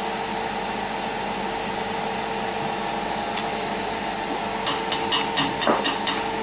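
Steady whirring hum of a motor or fan. About three-quarters of the way in, a quick run of about eight sharp clicks or knocks.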